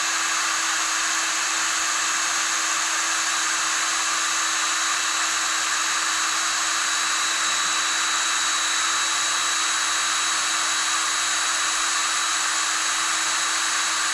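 Electric drill running at a steady speed, boring out the hinge pin screw of a Brompton folding bike with a small bit. One constant whine with a high hiss, no change in pitch or level.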